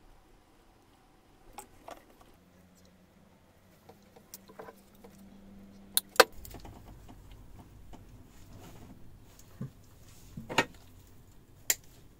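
Scattered clicks and metallic clinks of hand tools and small wire connectors being handled, with two sharp snaps close together about six seconds in and more single clicks near the end.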